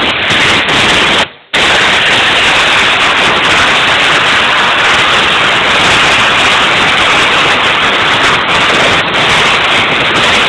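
Compressed-air blow gun hissing steadily as it blasts dirt off an RC model tracked loader, with one short break a little over a second in.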